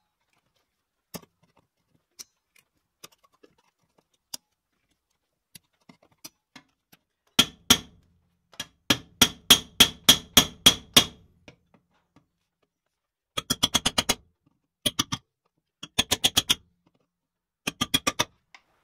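A hammer striking a metal bar held against a steel bracket, knocking a folded-back lip flat. After a few faint tool clicks, it comes in several bursts of sharp, ringing metallic blows, about four a second in the longest run.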